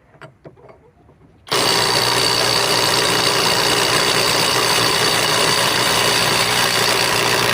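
Kobalt subcompact 3/8-inch cordless impact wrench hammering continuously for about six seconds as it tries to loosen a fastener, starting about a second and a half in after a few faint handling clicks.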